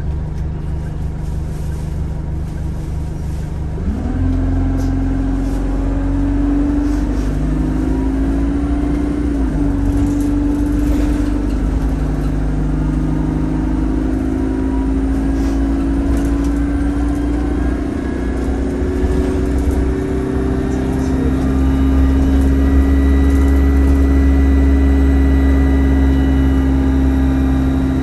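Single-deck bus's engine heard from inside the passenger cabin: a low idle rumble, then at about four seconds the engine picks up and the bus pulls away, its whine rising as it gathers speed, with a second rise in engine note later on.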